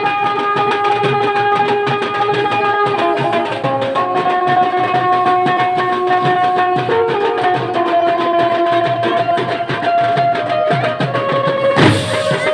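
Music with a steady drum beat under long held melody notes that step from pitch to pitch, with one sharp loud hit near the end.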